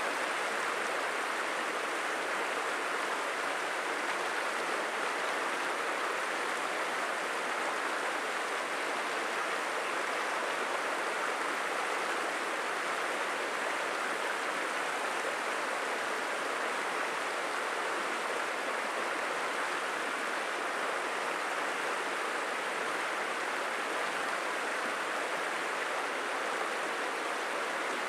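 Creek water running over rocks: a steady, even rushing.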